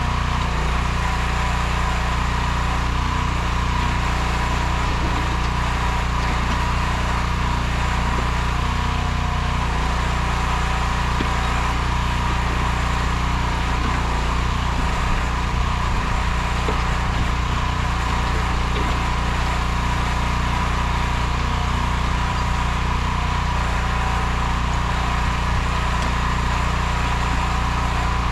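Nortrac towable backhoe's 15 hp engine running steadily at a constant speed.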